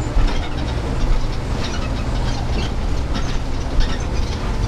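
A city transit bus under way, heard from inside: a steady low engine and road drone with irregular rattling and clattering from the bus body and fittings, and a sharper knock a little before the end.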